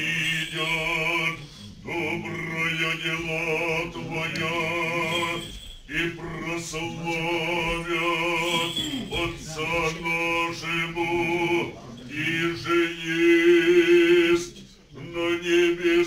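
Church choir singing Orthodox liturgical chant, mostly men's voices, in phrases of a couple of seconds broken by short pauses over a held low note. Near the end one voice grows louder with a wavering pitch.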